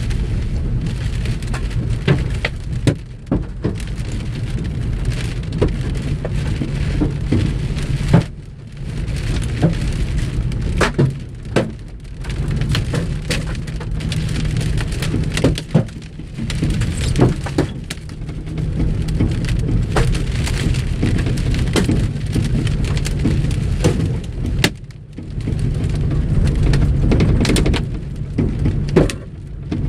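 Large hailstones, about 2 to 2.5 inches across, pounding a vehicle's roof and windshield, heard from inside the cabin. It is a dense clatter of hard knocks over a steady low hum, with a few brief lulls.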